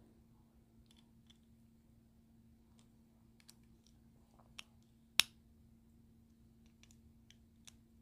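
Faint scattered clicks and taps of a folding knife being handled and turned over in the hands, with one sharp click about five seconds in, over a faint steady hum.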